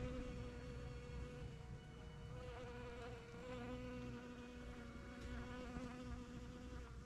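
Faint, steady buzzing of bees in flight, wavering slightly in pitch.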